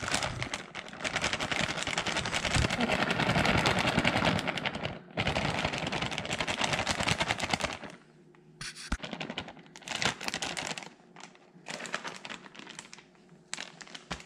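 Plastic bag of shredded mozzarella crinkling and crackling as the cheese is shaken out of it: a dense, rapid rustle for about eight seconds, then only scattered crinkles as the bag is handled.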